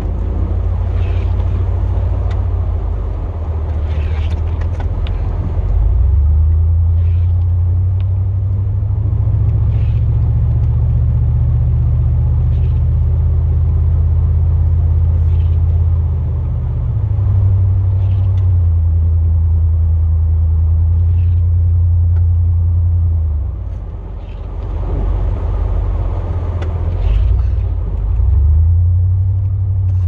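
Pickup plow truck's engine running under load as heard in the cab, its drone steady but stepping up in pitch several times, dropping back near the middle and again a few seconds before the end, then climbing once more, over a constant rumble of the truck moving.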